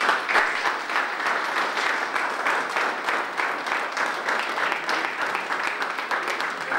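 Audience applauding, a dense, even patter of many hands clapping that starts suddenly.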